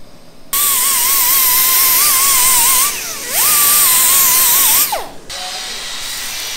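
Pneumatic cut-off tool whining over a loud hiss of air as its small abrasive wheel cuts through a steel bar tacked onto a motorcycle frame. It runs in two stretches, spinning back up after a brief let-off, and winds down about five seconds in.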